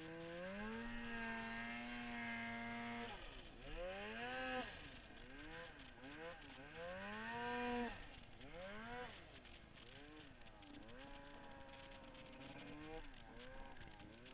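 Snowmobile engine revving: it holds a steady pitch at first, then climbs and drops again and again in quick surges, loudest near the middle, easing to lighter revs toward the end.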